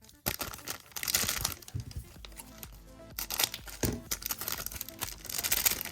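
Crinkling plastic-foil wrapper of a trading-card pack being handled, in several short bursts, over steady background music.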